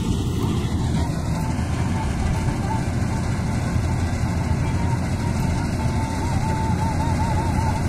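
Vishal 435 combine harvester running as it cuts mustard: a steady engine and threshing drone. A thin whistle-like tone wavers over it and warbles near the end.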